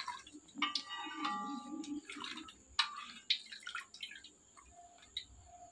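A perforated steel skimmer scooping a banana fritter out of hot frying oil in an iron kadai, with oil dripping back off it. There are a few sharp metal clinks and taps against the pan, the first ringing briefly about a second in, and the sounds die away near the end.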